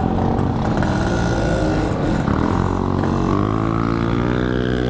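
Yamaha RX-King's single-cylinder two-stroke engine running, its pitch rising in the second half as it revs up.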